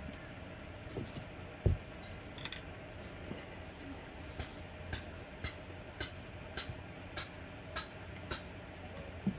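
A single dull thump on the tabletop about two seconds in, then light clicks of chopsticks tapping a wooden plate, about two a second through the second half.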